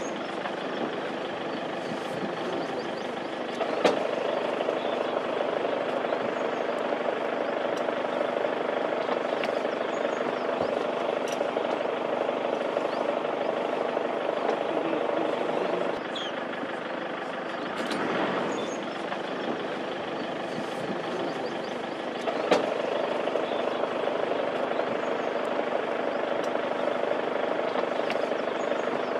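A vehicle engine idling steadily, with two short sharp knocks, one a few seconds in and one past the middle.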